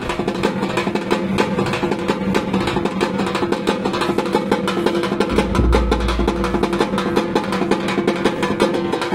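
Street drum ensemble of large stick-beaten bass drums and small hand-held frame drums playing a fast, dense rhythm. A heavier low rumble comes in a little past halfway and lasts about a second.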